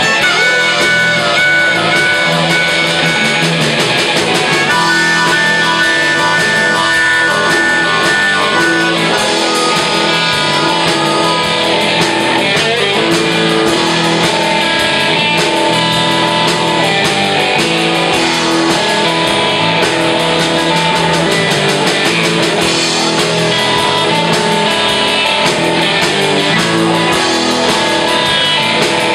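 Live blues-rock band playing: electric guitars and a drum kit, with held, wavering lead notes in about the first third, while the right-hand player has his hands cupped to his mouth at the microphone as if playing harmonica.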